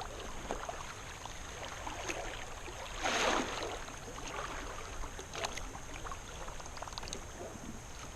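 River water lapping and trickling against a kayak hull, with small scattered knocks, and a louder rush of water about three seconds in.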